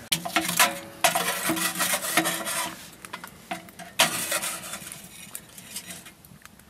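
Camp dutch oven and its metal lid being handled: sharp metal clanks at the start, about a second in and about four seconds in, each with a short ring, and clattering and scraping between them, dying away near the end.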